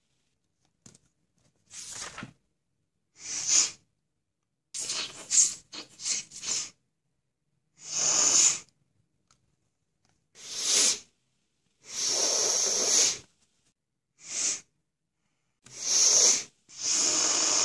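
A person with a stuffed-up nose sniffing over and over, one sharp sniff every second or two with a quick run of several sniffs about five seconds in. Near the end a longer, steady rush of air through the nose begins and keeps going.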